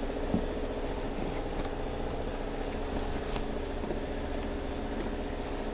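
Steady hum of an idling engine, with a few faint rustles and crinkles of plastic wrap and cardboard as hands dig through a clutch kit's packaging.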